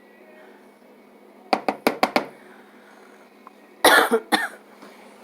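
Four quick, sharp clinks of a utensil against cookware, then a person coughs twice, the first cough the louder.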